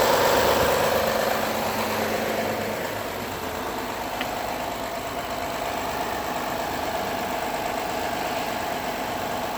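2009 Honda Accord V6 idling on a cold start. Its level drops over the first few seconds and then holds steady. The owner hears a knocking or tapping on cold starts that goes away after a few minutes, and asks whether it is a pulley or the belt tensioner.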